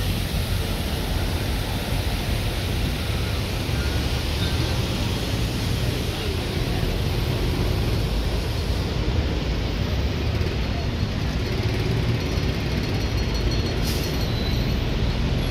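Steady outdoor background noise with a heavy low rumble throughout and no distinct single event.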